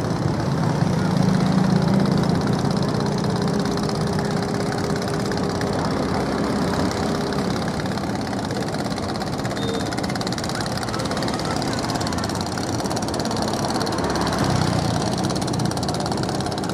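Steady low engine rumble with a constant hiss, unchanging throughout.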